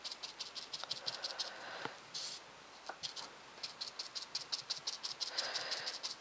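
Dry bristle brush dabbing blotted paint through a stencil onto a paper card: rapid light taps, several a second. The taps pause briefly about two seconds in, then resume.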